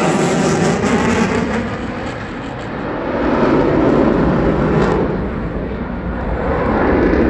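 Jet noise from a Eurofighter Typhoon's twin EJ200 turbofan engines in afterburner, a loud rushing noise as the jet climbs away. It eases about two seconds in and swells again around four seconds and near the end.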